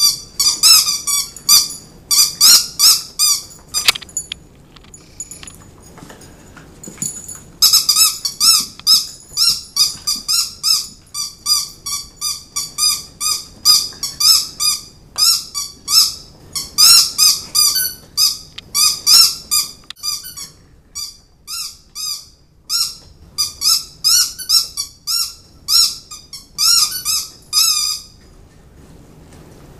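Dog squeaky toys squeaking over and over as Italian greyhounds bite and chew them: quick runs of short, high-pitched squeaks. There is a pause of a few seconds about four seconds in, and the squeaking stops shortly before the end.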